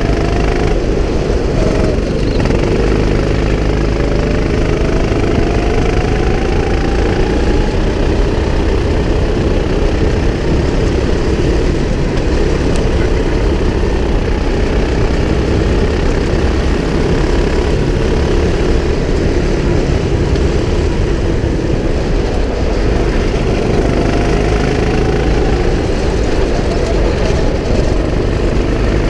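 Go-kart engine running at speed close to the microphone, with a dense low rumble throughout. Its pitch climbs slowly twice, about four seconds in and again after about twenty-three seconds, as the kart accelerates.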